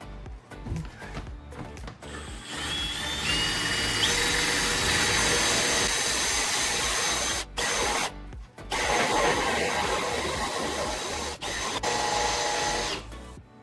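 Power drill boring the door-handle hole through a wooden door. It spins up about two and a half seconds in, with its whine stepping up in pitch. It cuts steadily with two brief stops about halfway, then stops near the end.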